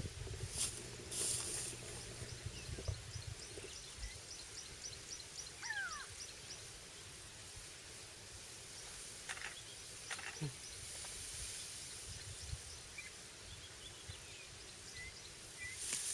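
Quiet bush ambience: a high, regular ticking call about four times a second over the first six seconds, a short falling call about six seconds in, and a few brief gusts of hiss.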